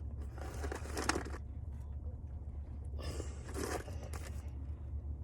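Rustling of a takeout food container and its packaging as a chicken tender is picked out, in two stretches of about a second each, over a steady low hum.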